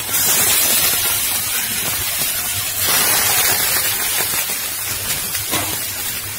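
Marinated chicken drumsticks sizzling on a hot, dry dosa tawa with no oil. The hiss swells as pieces are laid on, at the start and again about three seconds in.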